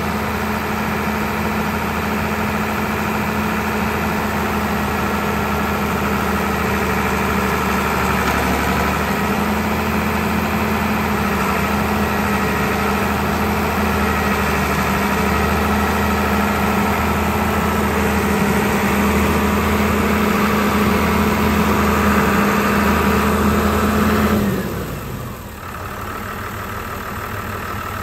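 John Deere 4240's six-cylinder turbo diesel engine running at a steady speed while the mired rear wheel slowly turns a log chained to it. About 24 seconds in the engine note drops and the engine gets quieter.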